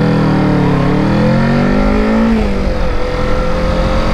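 Kawasaki Ninja 650's parallel-twin engine under hard acceleration from a standstill, revs climbing. About two and a half seconds in the pitch drops as it shifts up into second, and the engine then runs steady.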